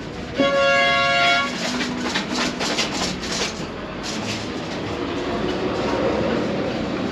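A loud horn-like blast of several steady tones held for about a second, followed by irregular clattering over the steady hubbub of a crowded place.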